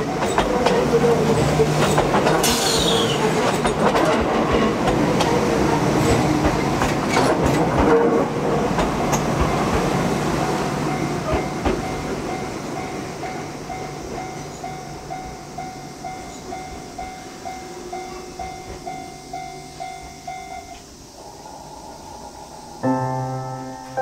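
Enoden electric train running over a level crossing, its wheels clicking over the rail joints, with the crossing's warning bell ringing in a steady rhythm. The train noise fades after about ten seconds, the bell stops a few seconds before the end, and music comes in near the end.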